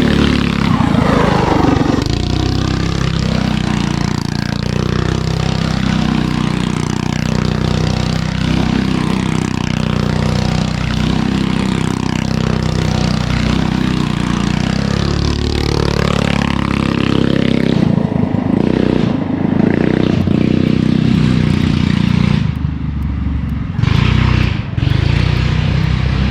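Go-kart engine running hard as the kart is driven around, its pitch dipping and rising over and over; the engine eases off briefly a few seconds before the end.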